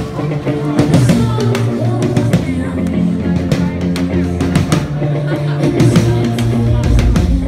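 Live band music: a drum kit keeping a steady beat under long held bass notes, with a woman singing into a microphone.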